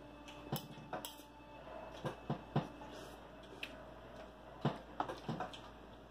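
Spoons and forks clinking and scraping against dinner plates during a meal, in scattered, irregular clinks.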